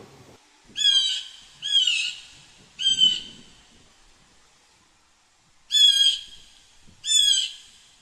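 Blue jay giving harsh, repeated jay calls: three about a second apart, then after a pause of a few seconds two more.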